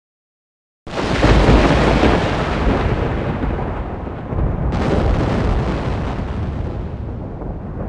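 Thunder: a sudden loud crack about a second in that rolls into a deep rumble, then a second crack a little past the middle, with the rumble slowly dying away.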